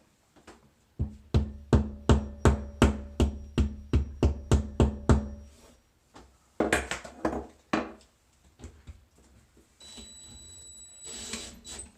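A hammer pounding a drywall anchor into drywall: a quick run of about fourteen strikes, roughly three a second, with a ringing note under them, followed by a few scattered knocks.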